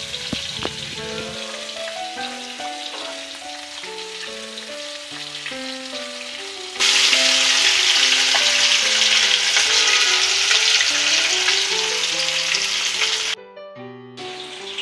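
Rohu fish steaks shallow-frying in hot oil in a kadai, a steady sizzle. About seven seconds in, the sizzling jumps much louder, then it stops abruptly near the end. A background music melody plays underneath.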